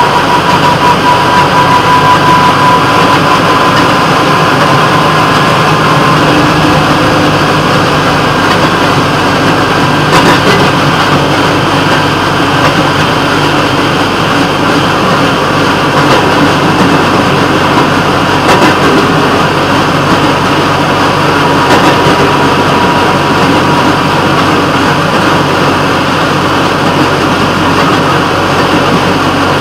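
WCRG 6634 running along the track: steady engine and running noise, with a faint steady whine over the first several seconds.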